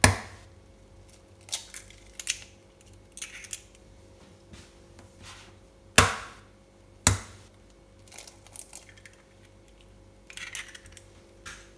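Eggs tapped on the rim of a plastic bowl and cracked open: a few sharp clicks, the loudest at the start and about six and seven seconds in, with softer shell-handling clicks between. A faint steady hum runs underneath.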